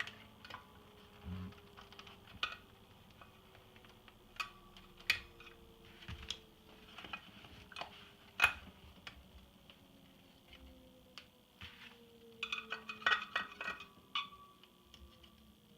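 Scattered light clicks and clinks of a metal tool against the CRT and metal chassis of an iMac G3 during the anode discharge, with one sharper click about halfway and a quick run of clicks near the end. Faint tones slowly sliding down in pitch sit underneath.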